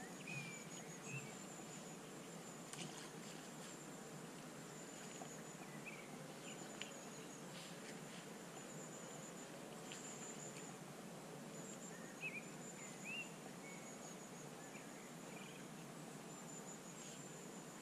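Faint outdoor ambience: a steady high-pitched pulsing trill, with a few short bird chirps and faint hiss.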